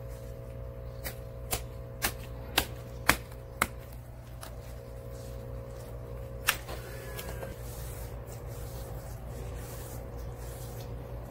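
Deba knife chopping down onto a wooden cutting board while filleting fish: six sharp knocks about half a second apart, then one more a few seconds later, over a steady low hum.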